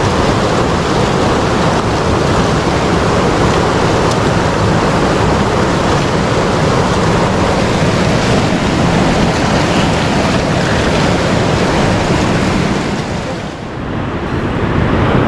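Fast, muddy river water rushing over rapids: a steady, loud wash of churning water that dips briefly near the end before coming back.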